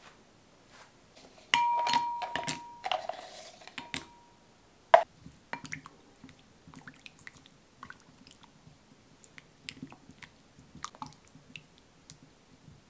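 Pieces of white chocolate dropping into a glass bowl of warm cream, clicking against the glass with a brief ringing tone, then one sharp tap about five seconds in. After that, a silicone spatula stirring the chocolate into the cream, with soft wet sounds and small taps against the glass.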